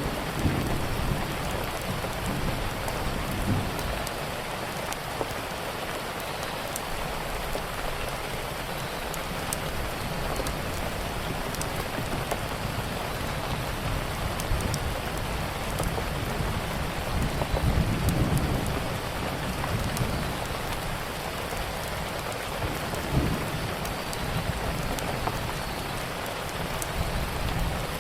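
Steady rainfall hissing, with low rumbles of distant thunder that swell about two-thirds of the way in and again near the end. Faint sharp crackles from a fireplace fire are scattered through it.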